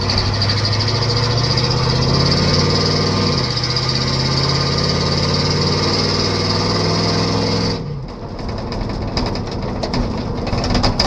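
Chevy tow truck heard from inside the cab while it accelerates on a freshly swapped automatic transmission. The engine pitch climbs, then steps down as it upshifts about three seconds in. About eight seconds in the engine note drops off sharply, and a loosely shut passenger door rattles.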